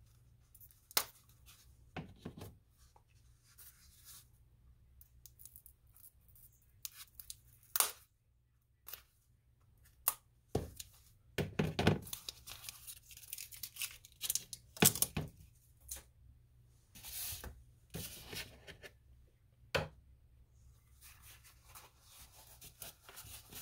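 A rolled card-game playmat being handled and unrolled on a table: scattered short rustles, scrapes and soft knocks, with quiet gaps between them.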